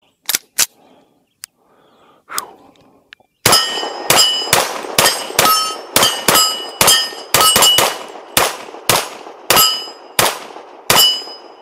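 Bul Armory Radical 2011 pistol in .40 caliber firing a fast string of about twenty shots, starting about three and a half seconds in. Steel plate targets ring with a clear tone after many of the hits. A couple of sharp clicks come before the string.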